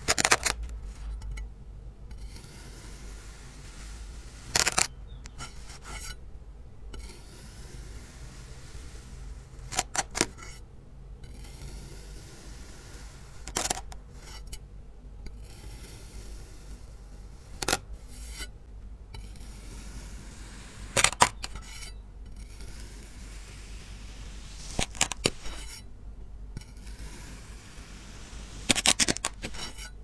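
A knife cutting into a packed purple dome: about eight short, sharp cuts, roughly four seconds apart, some made as two quick strokes.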